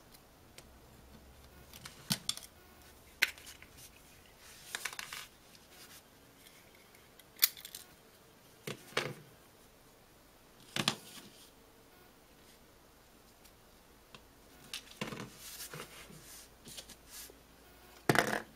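Scattered sharp clicks, taps and short scrapes of small plastic and metal parts as a Toyota remote key's plastic shell is pried apart with a small screwdriver and its pieces are handled and set down on a table. The loudest clatter of clicks comes near the end.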